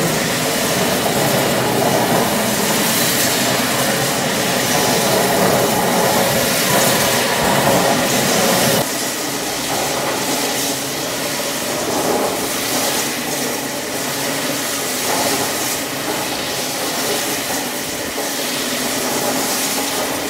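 Stone floor grinding machine running wet, its rotating grinding head scouring the stone floor under a water feed: a loud, steady grinding noise mixed with water hiss, a little quieter from about nine seconds in.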